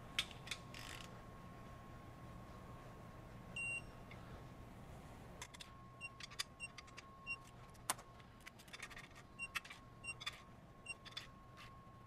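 MATCO 3/8-drive electronic torque wrench beeping and ratcheting as it is pulled on an engine main cap bolt. There is a single short beep about four seconds in, then from about halfway a run of short, irregular beeps with light metal clicks and one sharper clack. The beeps are the wrench's signal that it is reaching its preset 15 ft-lb target.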